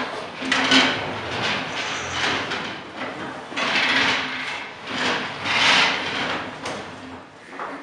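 Wooden school desks and chairs being shifted and handled on a wooden stage: a run of scrapes, rubs and knocks, loudest about four and six seconds in.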